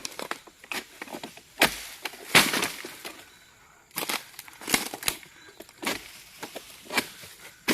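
Woody branches and foliage snapping and cracking, with rustling between: a string of sharp cracks, the loudest two close together about two seconds in, then several more spaced about a second apart.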